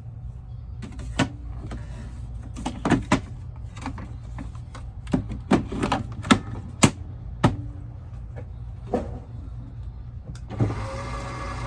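A string of sharp clicks and knocks as the EGO LM2100sp battery mower's handle and controls are handled, then about ten and a half seconds in its electric motor starts up with a steady whine.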